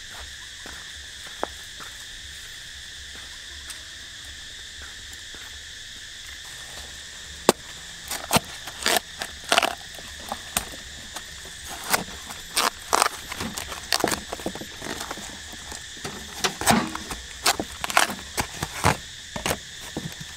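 Steady chorus of insects, joined from about seven seconds in by a run of irregular sharp knocks and clicks, which are the loudest sounds.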